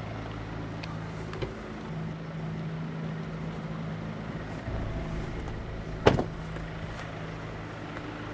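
Motorbike engine idling with a steady low hum. A sharp click comes about six seconds in.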